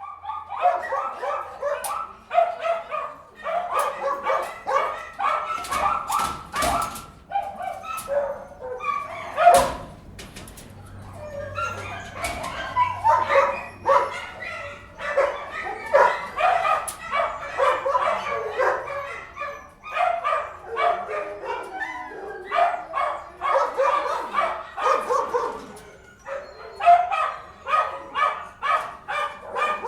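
Dogs barking angrily, rapid barks several a second with hardly a pause. A few sharp knocks stand out around six and ten seconds in.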